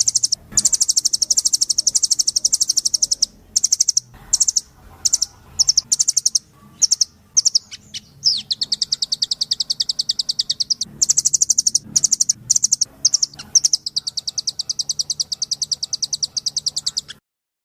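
Velvet-fronted nuthatch (rambatan doraemon) calling in loud, rapid, high-pitched trills of fast repeated notes. Some phrases are short and broken, and others run for several seconds. The calling stops abruptly near the end.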